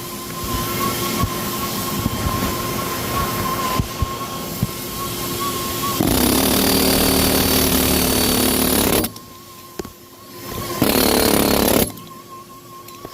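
Pneumatic air hammer running in two bursts: a long one of about three seconds starting six seconds in, and a shorter one of about a second near the end. A steady high-pitched whine is heard before and after the bursts.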